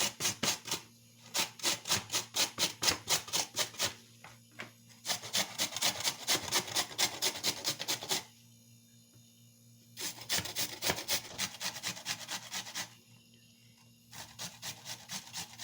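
A raw beet being grated on the coarse side of a hand grater: quick rhythmic rasping strokes, about five a second, in runs of a few seconds with short pauses between.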